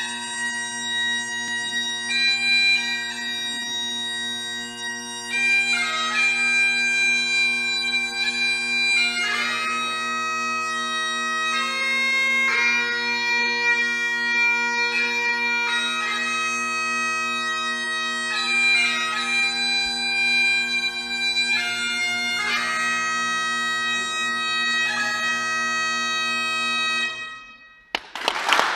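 Great Highland bagpipe playing a tune on the chanter over its steady drones. The pipes die away just before the end, and applause breaks out at once.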